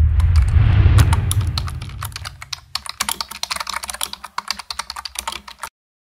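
Keyboard typing sound effect: rapid sharp clicks, several a second, over a low rumbling whoosh that fades away over the first two or three seconds. The clicks stop abruptly near the end.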